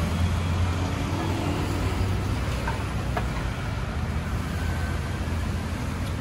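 Steady street traffic noise with a low engine hum that eases after about a second, and a couple of light clinks of a spoon against tins near the middle.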